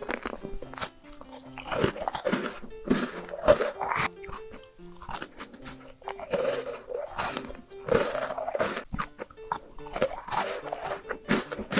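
Close-miked biting and chewing of chocolate: repeated crunching bites and wet chewing, over soft background music with held tones.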